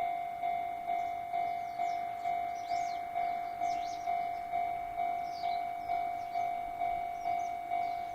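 Japanese railway level-crossing warning bell ringing steadily, about two strikes a second, each a sharp ding that fades before the next: the signal that a train is approaching the crossing. Bird chirps come and go above it.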